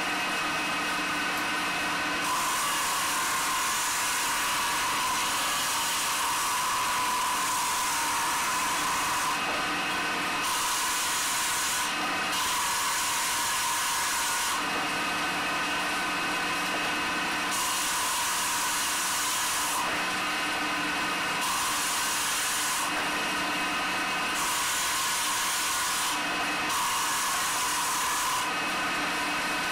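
Workshop machinery running steadily: a motor hum with a high hiss that cuts in and out every couple of seconds.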